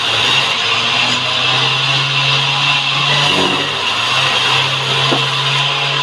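Band sawmill's blade cutting lengthwise through a log of salam hardwood. A steady, loud, high-pitched rasp rides over the low hum of the saw's drive.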